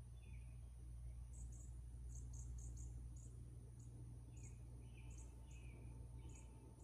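Faint outdoor ambience: insects chirping in short, high, irregular pulses, with a few fainter lower chirps and a low steady hum underneath.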